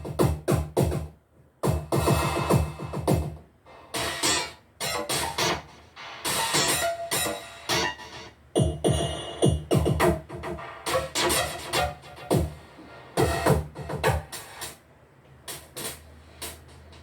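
Vintage-style synthesizer presets from Arturia Analog Lab V played on a keyboard: runs of short, punchy notes and chords with a few brief pauses between phrases.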